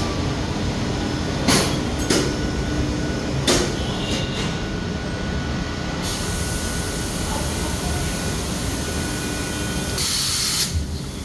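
Compressed air from a shop air line rushing into a newly fitted motorcycle tyre, with a few sharp knocks in the first few seconds. A loud burst of air hiss comes near the end. The bead has not yet seated.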